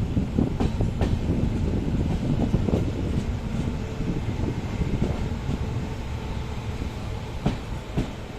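Passenger train running on the rails: a steady low rumble of wheels with scattered clicks and knocks.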